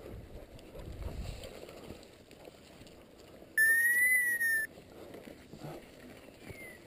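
A single loud whistle blast lasting about a second, just past the middle. It holds one pitch that rises slightly and falls back, and it is a hunter's whistle calling back his pointing dogs. A faint, short falling whistle sounds near the end.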